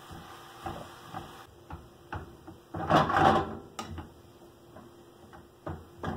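Wooden spoon knocking and scraping against a nonstick skillet while stirring wilting spinach, in scattered taps. A louder, longer scrape comes about three seconds in.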